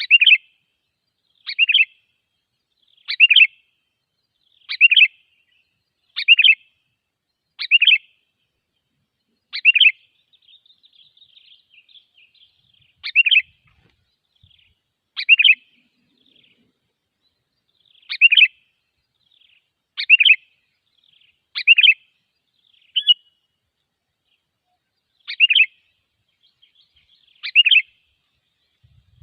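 Sooty-headed bulbul (kutilang) lure calls: a short, bright call repeated every one and a half to two seconds, with a stretch of soft twittering about a third of the way through.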